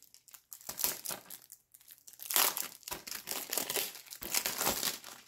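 Cellophane shrink-wrap on a Blu-ray case crinkling and crackling as fingers tear into it and peel it off, in irregular crackles that get busier about two seconds in.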